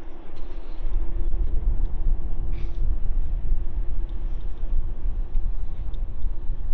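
Strong wind buffeting a phone microphone, a heavy, distorted low rumble, with a faint steady hum underneath.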